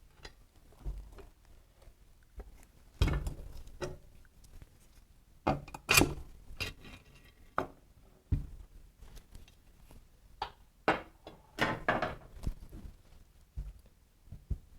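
Hand tools and small metal engine parts being handled during motorcycle engine disassembly: irregular clinks, knocks and clunks, loudest about three and six seconds in, with a quick cluster near the end.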